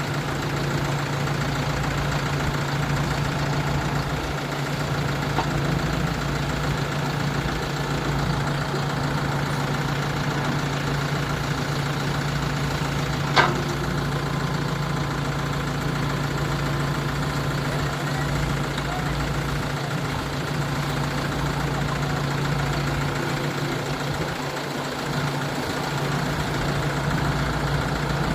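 Diesel engine of a construction machine running steadily at a low, even speed. About halfway through there is a single sharp metallic clank that rings briefly.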